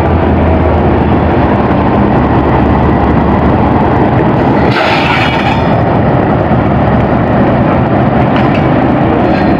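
Diesel locomotive engine running loudly as a passenger express train rolls into the station, with steady wheel and rail noise. A short hiss cuts through about five seconds in.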